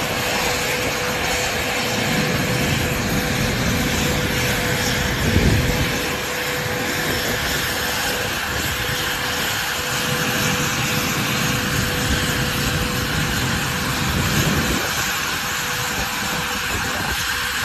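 Business jet's engines running as a steady roar with a constant whine through it, swelling briefly about five seconds in.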